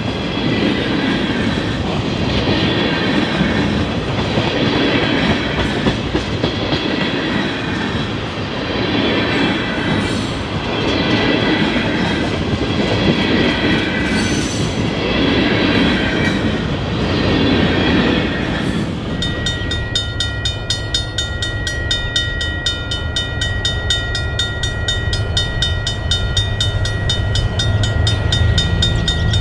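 Freight cars of a CN freight train rolling past, the wheels rumbling and clacking in a swell every couple of seconds, with a wavering high wheel squeal over it. About two-thirds of the way through the sound changes to a steady ringing of several high tones with a fast regular pulse.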